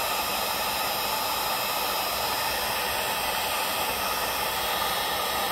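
Heat gun running steadily, blowing hot air with an even rushing hiss over a freshly poured liquid-plastic casting in a silicone mold.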